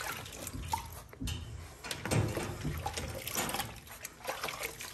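Soapy water splashing and trickling in a plastic bin as a hand scoops it up and pours it over a Yorkie puppy's back, in irregular splashes.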